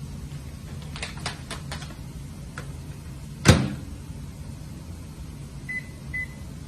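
Microwave oven being loaded and set: a few light clicks, then the door shut with a loud thump about halfway through, and two short keypad beeps near the end. A steady low hum runs underneath.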